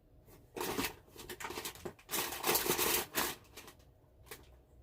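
Plastic snack wrappers and packaging rustling and crinkling in irregular bursts as someone rummages through a box of snacks.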